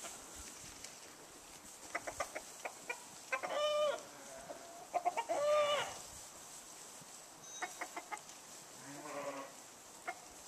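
Hens clucking: two calls of quick clucks, each ending in a drawn-out squawk, then a few more clucks. A goat bleats near the end.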